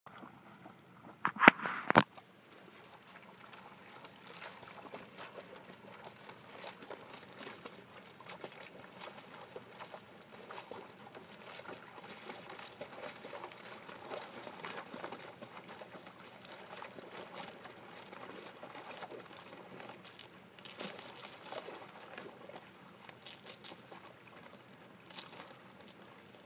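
Thin skim ice crackling and breaking, with small splashes, as a Brittany spaniel swims through it in a steady stream of tiny crackles. Two sharp knocks, about a second and a half and two seconds in, are the loudest sounds.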